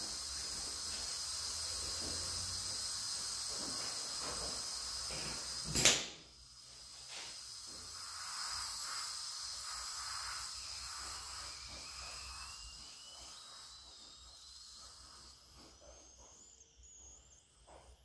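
Compressed air hissing steadily in the shop air line as the welded intercooler-clamp test rig is pressurized. A single sharp click about six seconds in cuts the hiss off, leaving only faint noise.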